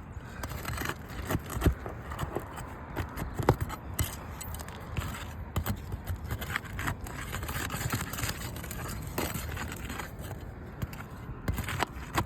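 Asphalt roof shingles being worked loose by hand: irregular scraping and crackling as the shingle seals are broken, with scattered sharp clicks.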